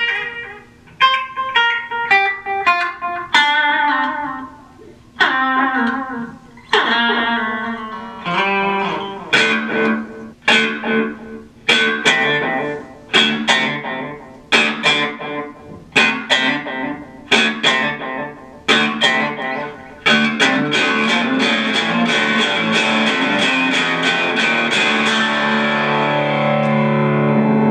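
Electric guitar played through a Boss Katana Mini amplifier on its clean channel with a little delay: picked notes and chords ringing out one after another, then from about twenty seconds in running together into a steady, continuous sound.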